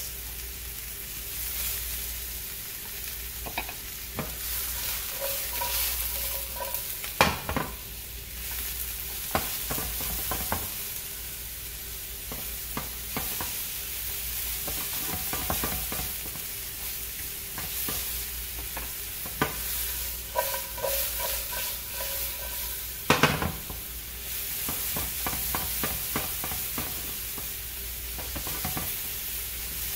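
Sliced mushrooms sizzling in hot oil in a nonstick frying pan as they sauté toward golden brown, stirred and pushed around with a silicone spatula. Steady sizzle with scraping and a few sharp knocks of the spatula against the pan, the loudest about seven seconds in and another past the two-thirds mark.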